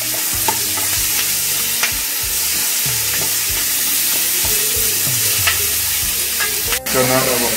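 Diced onion and green capsicum sizzling in a little oil in a nonstick frying pan as a wooden spatula stirs them, with a steady hiss and occasional sharp taps and scrapes of the spatula on the pan.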